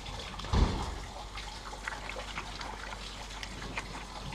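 Rinse water trickling and dripping onto wet concrete, with a single dull thump about half a second in.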